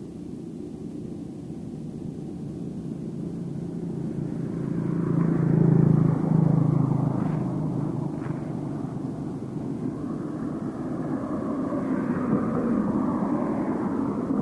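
Engine of a passing vehicle, growing slowly louder to a peak about six seconds in and then fading, with another engine sound building again near the end.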